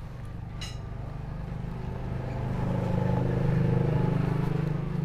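A motor vehicle's engine passing by, its low hum growing louder to a peak a little past the middle and then easing off. A single sharp click about half a second in.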